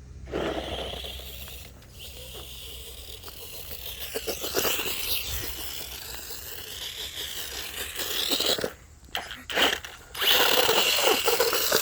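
Radio-controlled toy car's small electric motor whining, rising and falling in pitch as it drives, with tyres crunching over gravel and small rocks clicking as they are thrown up. The sound cuts out briefly twice near the end.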